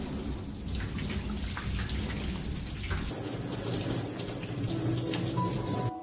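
Kitchen tap running in a steady stream, splashing over a lotus root and into a stainless steel sink as the root is rinsed by hand.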